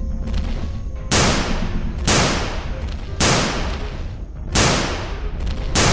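Gunshot sound effects: single sharp cracks about a second apart, five in all, each dying away quickly, starting about a second in.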